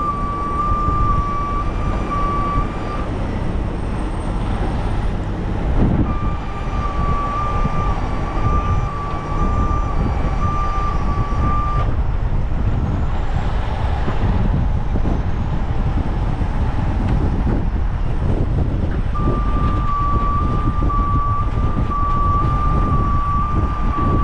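A truck warning alarm gives a steady high tone that stops and starts, sounding in three stretches, over the rumble of a heavy diesel truck engine running and strong wind buffeting the microphone.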